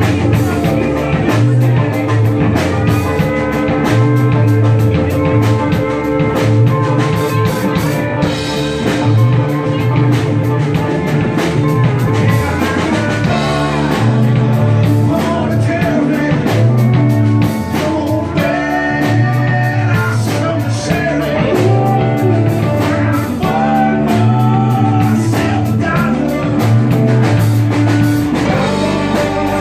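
Live rock band playing, with electric guitar, electric keyboard, bass and drum kit keeping an even beat, and a man singing through the middle.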